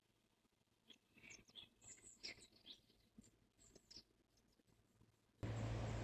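Near silence with faint, short bird chirps scattered through the first few seconds. About five seconds in, a steady hiss with a low hum comes in suddenly.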